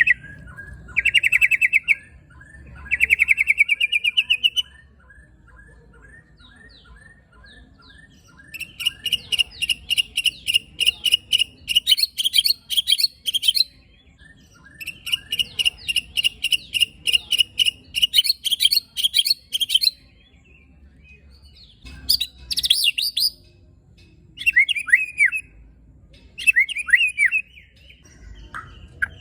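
White-rumped shama (murai batu) singing harsh, rapid 'tembakan' and 'besetan' phrases: short buzzy trills, a run of quick repeated notes, two long bursts of very fast rattling notes, and a few downslurred calls near the end.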